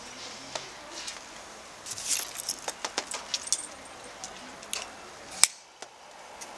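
Small clicks and rustles of hands handling a cigar and picking up a torch lighter, with one sharp click about five and a half seconds in.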